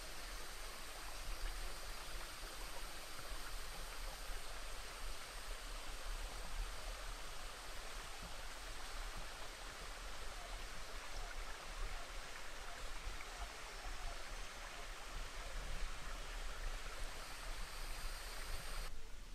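Steady rush of a mountain stream, with a thin, steady, high insect whine above it; the high whine drops out about a second before the end.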